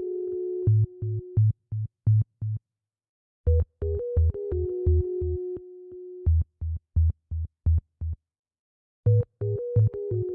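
Background electronic music: steady synthesizer notes over a regular low beat, with the track cutting out dead twice for under a second.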